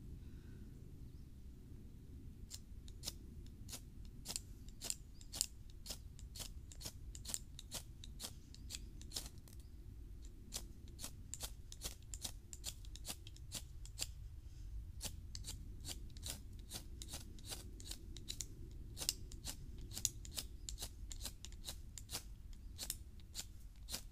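Magnesium fire-starter rod scraped hard with a striker, a run of short, sharp scrapes about two a second that begins a couple of seconds in. The sparks fail to light the tinder, which is damp from recent rain.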